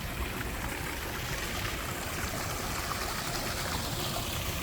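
Steady rush of running water, an even sound that doesn't change through the stretch.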